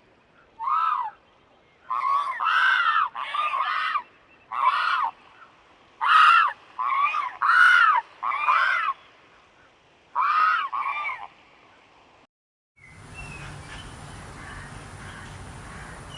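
A crane calling: a series of about a dozen short, loud honking calls, each rising and falling in pitch, some coming in quick pairs. Near the end, after a brief gap, a steady background hiss takes over.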